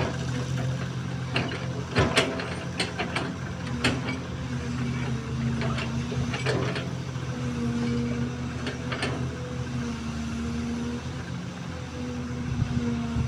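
XCMG XE215C excavator's diesel engine running steadily under a tone that comes and goes as the hydraulics work. There is a scatter of sharp knocks and clanks, several in the first few seconds and a few more later.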